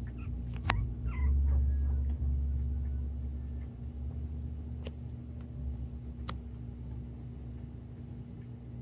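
Puppies giving a few short, high squeaks and whimpers in the first second or two, over a low rumble. Three sharp clicks follow later.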